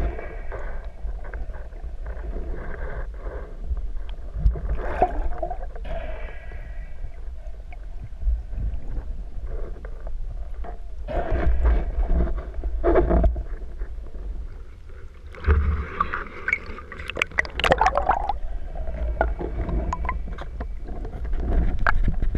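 Muffled underwater rumble and gurgling picked up by a speargun-mounted camera in its waterproof housing, with scattered knocks and scrapes that come in clusters about 5, 12 and 17 seconds in.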